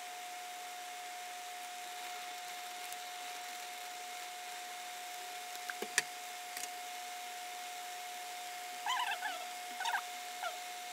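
Fast-forwarded sound of a pot of instant noodles boiling on a cooktop: a steady hiss with a steady high tone, one sharp click of metal tongs against the pot about six seconds in, and a few short squeaky chirps near the end.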